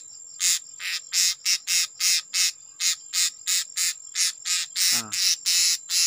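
Insect chirping in a fast, regular pulse, about four chirps a second, over a steady high whine.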